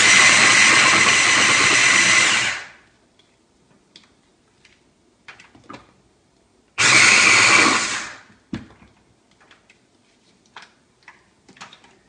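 Electric mini food chopper pulsed twice, mincing onions finely: a run of about two and a half seconds, then a shorter one about seven seconds in, each starting abruptly and winding down. Light knocks of handling the chopper come in between.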